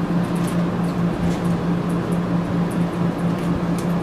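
A steady low mechanical hum with a fast pulse, like a fan or air-conditioning unit, runs throughout. Over it come light scattered snips and crinkles of scissors cutting through a plastic-and-fabric potholder pocket.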